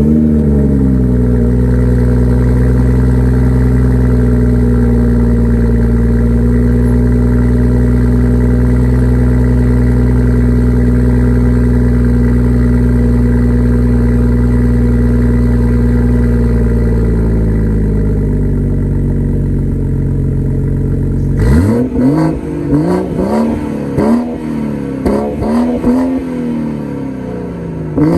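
BMW 340i's B58 3.0-litre turbocharged inline-six with a Dinan full exhaust starting up and flaring, then idling steadily. The idle drops lower after about eighteen seconds. From about twenty-one seconds in it is blipped in a series of sharp revs, right up to redline.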